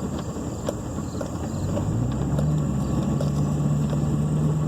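Pickup truck engine running as it drives across a farm field, heard from inside the cab with a few light rattles; about two seconds in the engine note rises and then holds steady.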